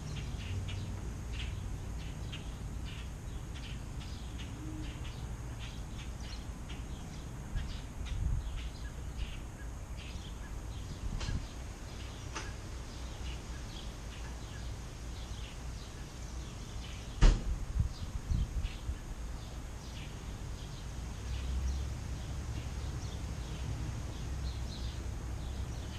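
Small birds chirping in short, scattered calls, with a few low bumps of things being handled and one sharp knock about two-thirds of the way through.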